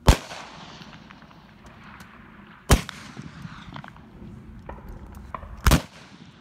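Three shots from black-powder muzzle-loading target rifles, roughly three seconds apart, each a sharp crack with a short fading tail; the first is the loudest and the last is a doubled crack.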